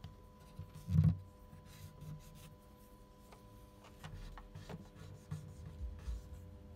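Quiet hand work at the bench: light rubbing and scraping with a few small clicks and one soft knock about a second in, over a faint steady hum.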